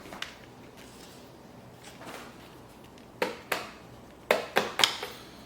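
Hard plastic parts of a toy bubble machine being handled and fitted together: a few scattered clicks, then a quick run of sharper knocks near the end.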